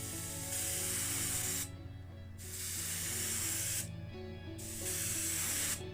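An airbrush spraying white paint in three bursts of hiss, each over a second long, with short pauses between.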